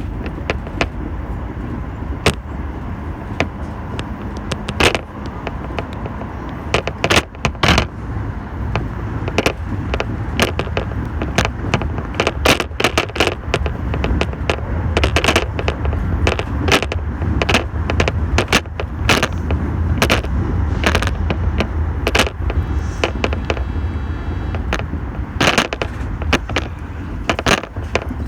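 Subway train running through a tunnel, heard from inside the car: a steady low rumble with frequent sharp clacks from the wheels on the rails. A faint high whine comes in briefly near the end.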